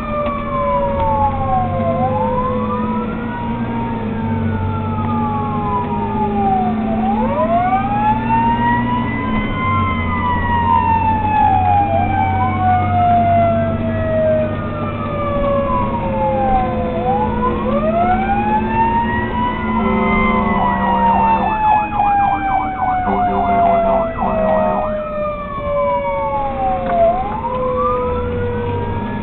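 Fire engine sirens running over the truck's steady engine drone. A wail rises and falls every few seconds, while another siren tone slides slowly down in long falling sweeps.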